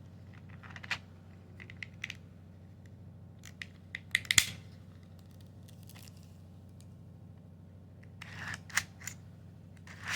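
Hard plastic parts of a 3D-printed hidden blade clicking and clattering as they are handled and fitted together, in a few short clusters with the loudest about four seconds in, over a steady low hum.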